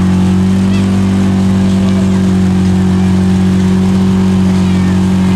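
Side-by-side UTV engine held at steady high revs, a loud constant drone that neither rises nor falls, as its tyres spin and churn through deep mud.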